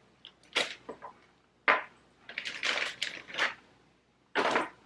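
Frozen shrimp and a plastic zip bag being handled in a bowl: a handful of short clinks and rustles with pauses between them.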